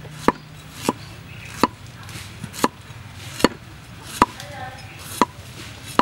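Cleaver slicing ginger root on a wooden chopping board: the blade knocks sharply on the board about seven times, at an uneven pace of roughly one cut a second.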